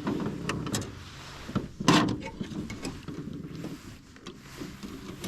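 Knocks, clicks and rattles from handling a freshly caught crappie and gear in a boat, with one loud sharp knock about two seconds in.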